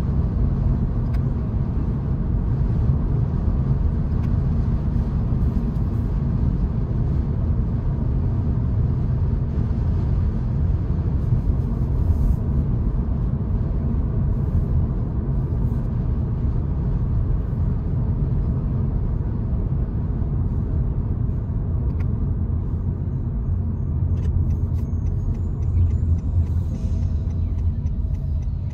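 Road and wind noise inside a 2022 Honda Insight's cabin as it drives with the sunroof open: a steady low rumble. Near the end a run of faint, evenly spaced ticks joins it.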